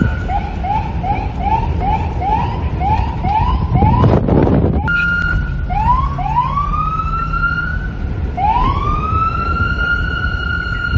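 NYPD police car siren switching through its patterns: a fast yelp of rapid rising chirps, about three a second, then a brief steady tone, two short whoops and a long wail that rises and holds. There is a brief loud rush of noise about four seconds in, and wind noise underneath.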